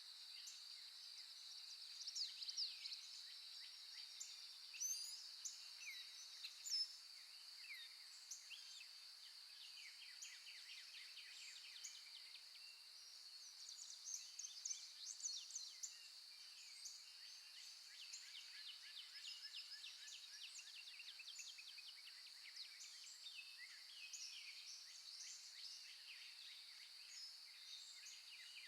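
Faint birdsong: many short chirps and quick sliding whistles from several birds, over a steady high-pitched drone.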